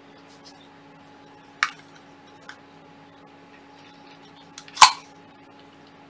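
Sharp plastic clicks from handling a wireless microphone bodypack and its clip: one click about a second and a half in, a faint tick a second later, and a louder snap near the end, over a faint steady hum.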